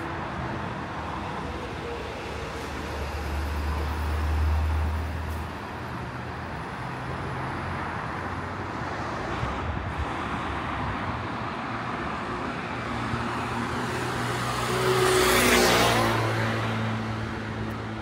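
Road traffic passing on a street: a steady background of traffic, a vehicle with a low engine rumble passing about four seconds in, and a louder vehicle passing close by about fifteen seconds in, its tyre noise rising and falling, with an engine hum carrying on after it.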